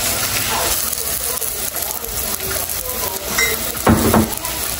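Dough patties frying in hot oil in a stovetop frying pan, sizzling steadily. A brief louder clatter comes about four seconds in.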